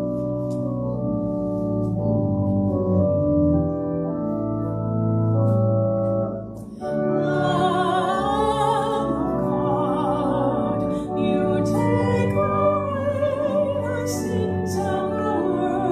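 Church organ playing held chords, then after a brief pause about seven seconds in a woman cantor starts singing with vibrato over the organ.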